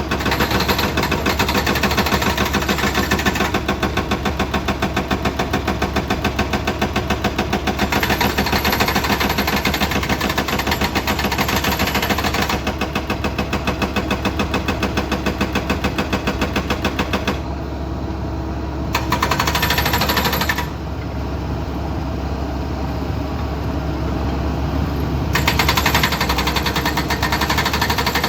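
Excavator working: its diesel engine runs with a fast, even hammering clatter. The clatter drops away for a moment about two-thirds of the way through and again for a few seconds after, leaving the engine running underneath.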